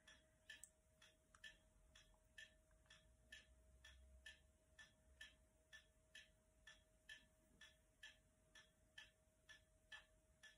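Near silence with faint, regular ticking, about two to three ticks a second, over a faint steady hum.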